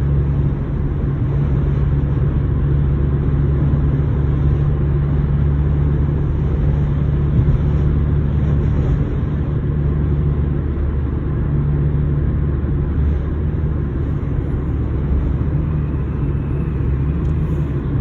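Steady drone of a car driving at highway speed, heard inside the cabin: tyre and engine noise with no change in speed.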